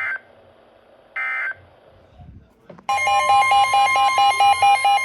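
NOAA Weather Radio end-of-message data bursts: two short screechy digital tone bursts, one at the start and one about a second later. About three seconds in, the steady 1050 Hz warning alarm tone comes on, with a second alarm beep pulsing about five times a second over it, signalling that a new warning is about to be read.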